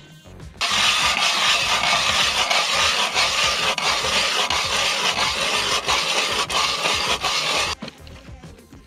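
Hand-cranked ice auger drilling a hole through lake ice: a steady grinding scrape of the blades cutting ice. It starts just under a second in and stops suddenly near the end.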